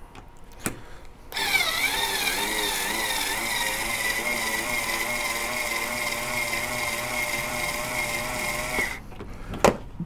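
Cordless power driver spinning the three-way cutter head of a Hornady case trimmer, trimming, chamfering and deburring the neck of a brass rifle case. The motor's whine wobbles in pitch for its first couple of seconds, then holds steady for about seven seconds before it stops.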